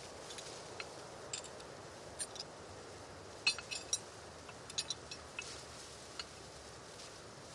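Scattered light metallic clicks and clinks of hand tools against a combine harvester's machinery, irregular and loudest about halfway through, over a steady background hiss.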